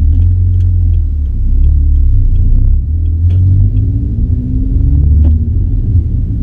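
Remapped Audi S3's turbocharged four-cylinder engine and road noise, picked up by a camera microphone as a heavy, distorted low rumble, the engine note climbing gently about three to five seconds in.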